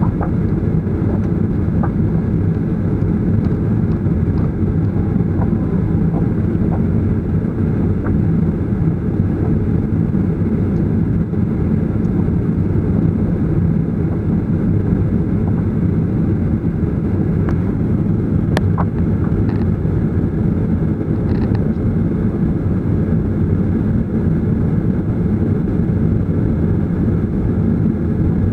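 Steady low rumble inside a jet airliner's cabin, from its engines at idle while the aircraft taxis slowly or holds on the taxiway.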